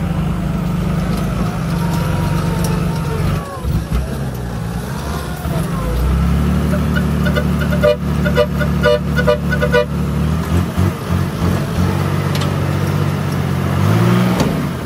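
Diesel dump truck engine running under the tipper's hydraulic hoist as the loaded bed of soil is raised. The engine steps up and runs harder from about six seconds in, with a quick run of short beeps around eight to ten seconds in, and rises in pitch again near the end.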